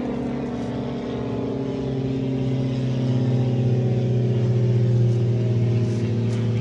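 An engine or motor running steadily with a low hum, growing louder through the middle and easing off slightly near the end.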